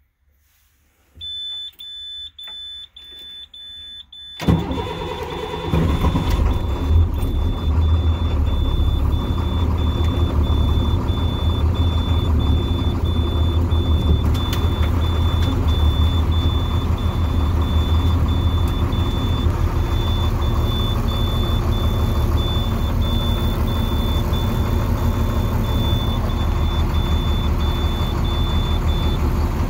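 Dash warning chimes and an evenly pulsing high beeper at key-on, then the International DT466E inline-six turbo diesel cranks briefly and fires about four seconds in, settling into a steady low idle. The high beeper keeps pulsing under the idle and stops near the end.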